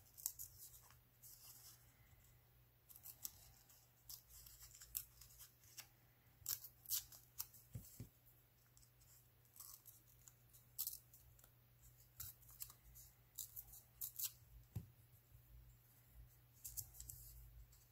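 Paper being torn by hand in small pieces and handled, making faint, scattered crackles and rustles.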